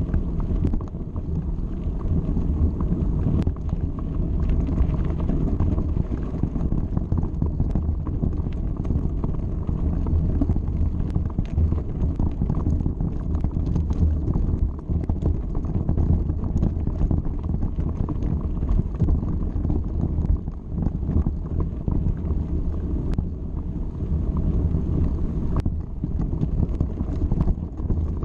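Mountain bike rolling along a gravel track: a steady rumble of tyres on loose stones, with frequent sharp clicks and rattles from the bike over the bumps, and wind buffeting the microphone.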